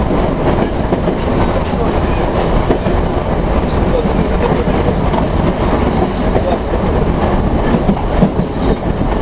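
Kyiv metro train running at speed, heard from inside the carriage: a steady, loud rumble of wheels on the rails.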